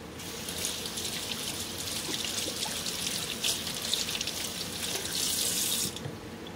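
Kitchen tap running as hands are washed under it, splashing now and then, then turned off abruptly near the end.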